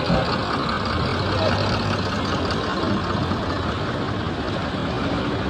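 Steady road vehicle noise, engines running with a low hum.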